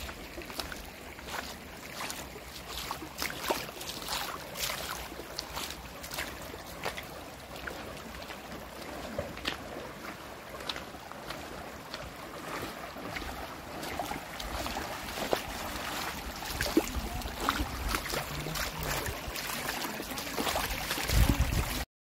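Water splashing with many irregular clicks and knocks, and wind rumbling on the microphone; it cuts off suddenly near the end.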